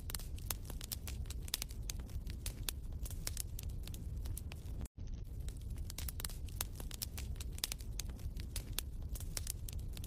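Wood fire crackling in a fireplace: a steady low rumble of flames with frequent sharp, irregular pops and crackles. The sound cuts out for an instant about five seconds in.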